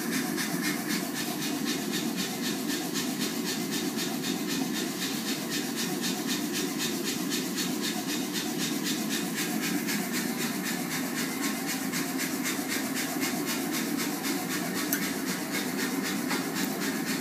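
Blacksmith-shop machinery running steadily: an even rushing hiss with a fast, regular pulse that holds unchanged throughout.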